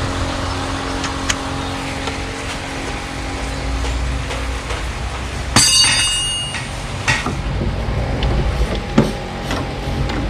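Serpentine belt being worked off the pulleys of a SsangYong Stavic's engine with the engine stopped. There is a sharp metallic clack with a brief ring about halfway through, then a few lighter knocks, over a steady low hum.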